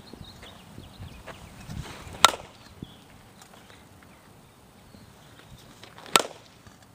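Softball bat striking tossed softballs during batting practice: two sharp cracks of contact, about two seconds in and again about four seconds later.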